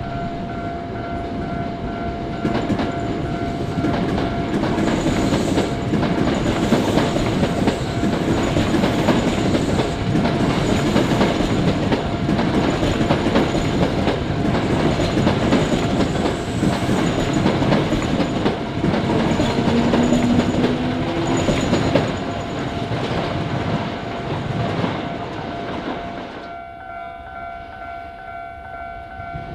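Electric commuter train passing over a level crossing, its wheels clacking over the rail joints, with the crossing's warning bell ringing steadily throughout. The train noise dies away about 26 seconds in, leaving the bell.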